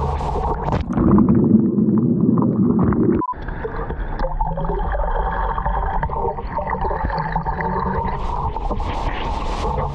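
Seawater churning and gurgling around an action camera held in breaking surf. The sound is muffled and heavy while the camera is under a wave for the first few seconds, breaks off suddenly, then turns to sloshing at the water line.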